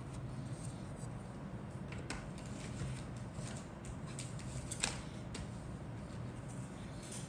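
Light handling noise of a plastic model-kit sprue being moved and taken off a cutting mat: a few small clicks and taps, the sharpest about five seconds in, over a steady low hum.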